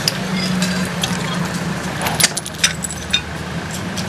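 A vehicle engine running steadily, with a few sharp metallic clinks and rattles between about two and three seconds in.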